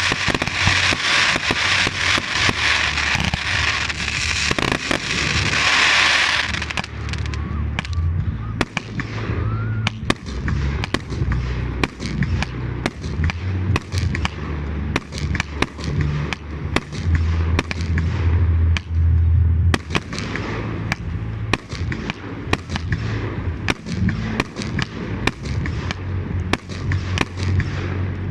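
Fireworks display: a dense crackling for the first six seconds or so, then a rapid run of sharp bangs over a low rumble.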